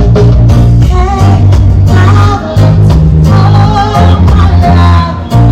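Background music with a sung vocal over a heavy bass line, loud.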